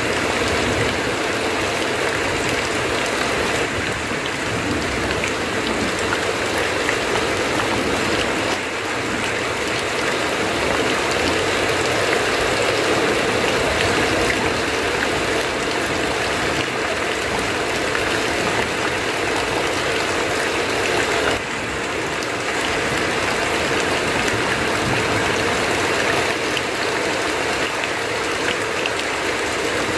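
Heavy rain roaring on a tin roof, with runoff streaming off the eaves, making a steady, even hiss that dips slightly twice.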